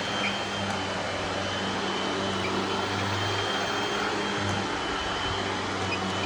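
Panasonic vacuum cleaner running steadily: an even rush of air over a low motor hum, with a thin steady whine above it.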